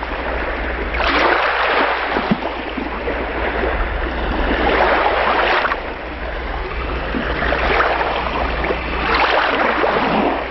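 A steady rushing noise that swells three times, over a low steady hum.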